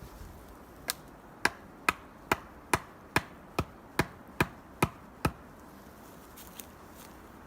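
Chopping blows on wood: eleven quick, evenly paced strikes, about two a second, the first lighter. They stop a little past five seconds in.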